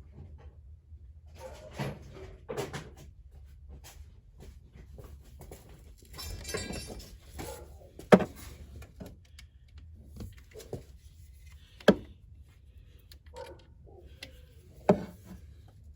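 Scattered clicks and knocks of parts being handled, with three sharp loud clicks in the second half and quieter rustling between.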